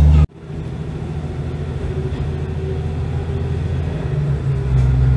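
Diesel railcar pulling away on the track, heard from on board: a steady low engine drone over wheel rumble, the engine note growing louder about four and a half seconds in.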